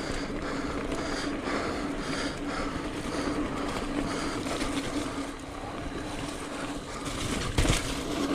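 Mountain bike rolling fast over a dirt singletrack trail, with a steady rumble of tyres and rushing air. Hard knocks come near the end as the bike hits the ground off a drop into a rock garden.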